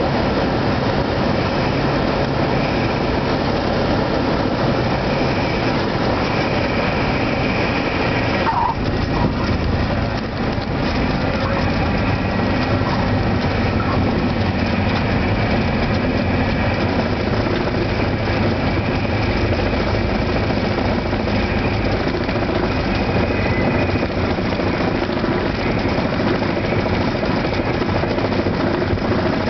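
Single-engine Cessna's piston engine and propeller droning steadily at low power on landing and rollout, heard inside the cockpit. The sound changes abruptly about eight and a half seconds in.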